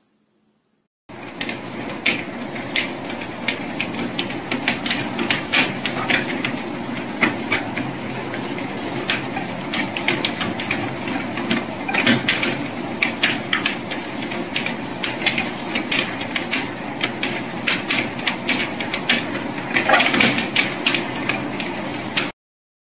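Treadmill running with a steady whir, with many sharp clicks and taps over it as a dog and a cat step on the moving belt. It starts about a second in, and the taps cluster more thickly around the middle and near the end.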